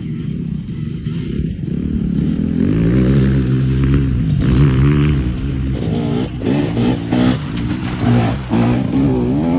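KTM 250 SX single-cylinder two-stroke motocross engine running, climbing in pitch as it accelerates from about two seconds in. Near the end it is blipped up and down five or six times in quick succession.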